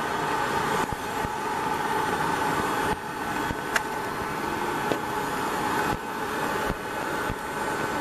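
Propane torch firing steadily into a homemade bucket-and-brick can furnace, a continuous roar with a faint steady whistling note, heating a crucible of crushed aluminium cans. A few faint sharp ticks sound through it, one a little under four seconds in.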